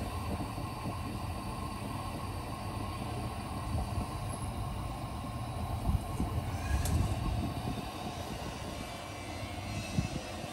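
Freshly lit Aida 1215 kerosene pressure lantern burning with a steady hiss from its burner, with a few light knocks about six seconds in and near the end.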